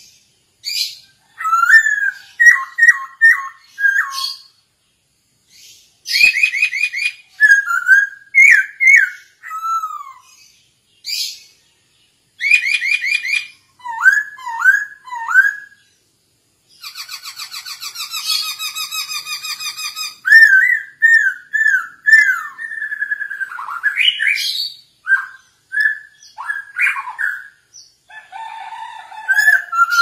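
Caged poksay hongkong (a laughingthrush) singing loud, clear whistled phrases of repeated slurred notes, with short pauses between phrases. A little past the middle it breaks into a few seconds of harsh, rasping chatter before going back to whistling.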